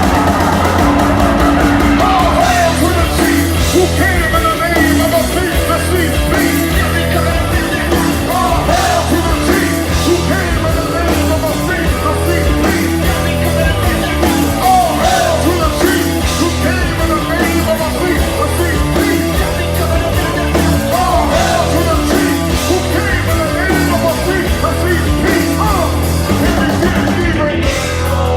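Rap-rock band playing live: heavy electric guitar, bass and drums under shouted, rapped vocals.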